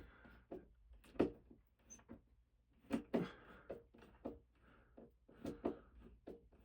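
Irregular light knocks and clicks of a screwdriver and the metal mounting bracket as the bracket screws of a ceiling fan are worked loose.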